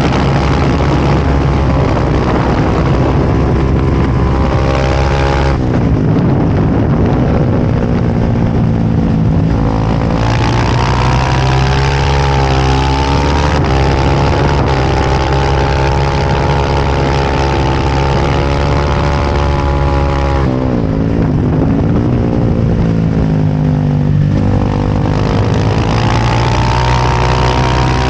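Kramer 690 race bike's single-cylinder engine at racing revs, heard on board with wind rush. The engine note drops sharply about five seconds in and again around twenty seconds in as the bike slows for corners, then climbs through the gears as it accelerates away.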